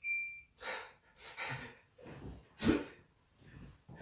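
A water purifier's electronic chime sounds once, a steady high beep that ends just after the start. Then comes a man's quiet, breathy laughter in several short huffs, the loudest nearly three seconds in.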